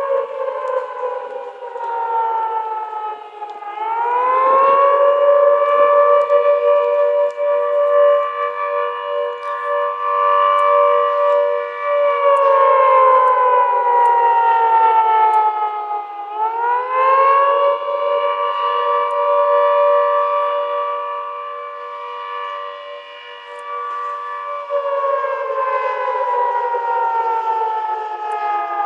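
Naval base nuclear-emergency warning sirens on test, wailing. The pitch rises over about a second and a half, holds steady for several seconds, then falls slowly over about four seconds before rising again, the cycle repeating roughly every twelve seconds. Two slightly different pitches sound together throughout.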